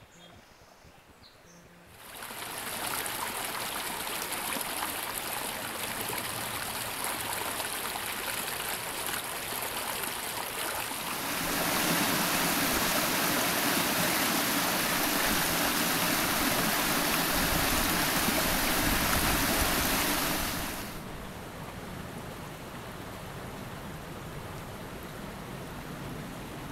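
Creek water rushing and splashing over boulders in a small rocky cascade, a steady watery rush. It comes in about two seconds in, grows louder about eleven seconds in and drops back about twenty seconds in.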